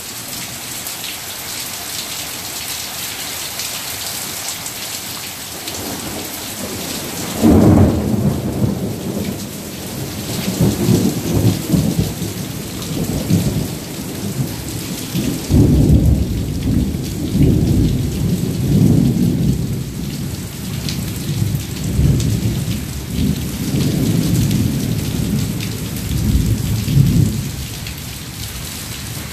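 Heavy rain falling steadily, then a long roll of thunder that starts about seven seconds in and keeps rumbling in swells until near the end.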